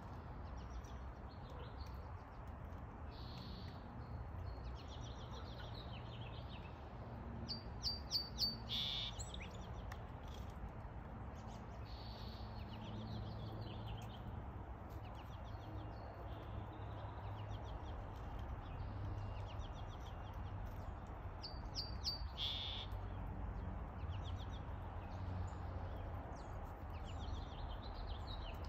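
Wild songbirds chirping and singing, with quick runs of high notes that are loudest about eight seconds in and again a little past twenty seconds, over a low steady rumble.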